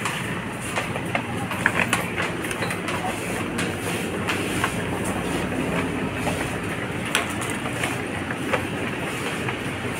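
Busy convenience-store ambience: a steady din of people and store machinery, dotted with short clicks and knocks.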